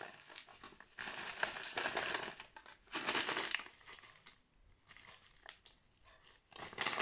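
Paper microwave-popcorn bag crinkling and rustling as it is handled, in a few bursts with a quieter stretch of scattered crackles near the end.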